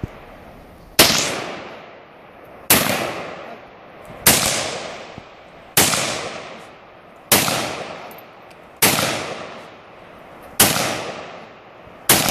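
Semi-automatic SKS rifle in 7.62x39 fired eight times at a steady pace, about one shot every second and a half, each report trailing off in an echo that fades over about a second.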